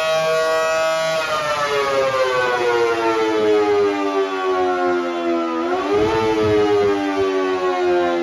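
Federal Sign & Signal Model 5BT electromechanical siren, wired up and running on test, held at full pitch and then cut off about a second in, winding down in a long falling wail. About six seconds in it is powered again briefly, so the pitch swings up before falling away once more: the on-off cycling of a short attack signal.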